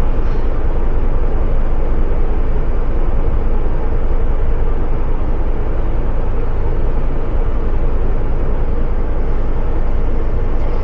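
Blower running steadily as snow is blown out of cattle feed bunks: a loud, even motor noise with no breaks.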